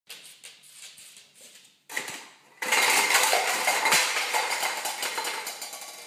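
A pyramid of stacked plastic cups knocked over by a cockatoo, clattering down onto a wooden floor. A few light taps and a sharp knock come first. About two and a half seconds in a long, loud clatter of many cups tumbling, bouncing and rolling begins, then dies away.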